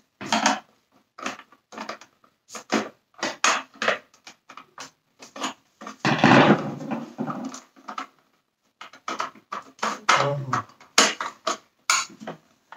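Hard plastic clicks, knocks and taps as a Dyson vacuum cleaner's plastic housing is handled and worked apart with a Torx screwdriver, short sharp sounds with silent gaps between them. About six seconds in there is a longer scrape lasting a second or so.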